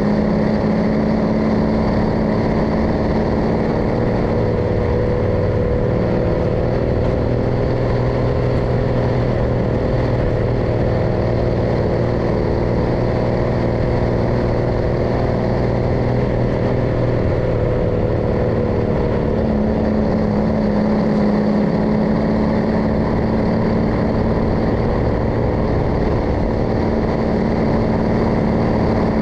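MAN LE280B 4x4 truck's diesel engine running while the truck drives along. Its note changes between about six and eighteen seconds in, then settles back.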